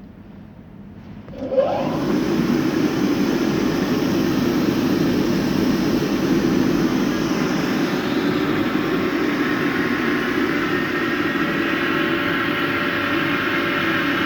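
Nilfisk CTS22 industrial vacuum cleaner with a 2.2 kW side-channel blower, switched on about a second and a half in: it spins up quickly with a short rising whine, then runs steadily with a loud rushing whine.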